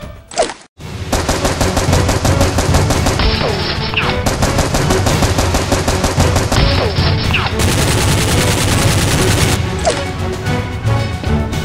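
Rapid automatic gunfire sound effects for a Nerf blaster fight: a brief dropout at the very start, then a continuous stream of closely spaced shots. Two descending whistles come about four and seven seconds in.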